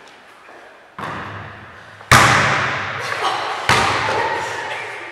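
A netball thudding three times in a large sports hall, about one, two and near four seconds in, the middle thud the loudest, each one ringing on in the hall's echo.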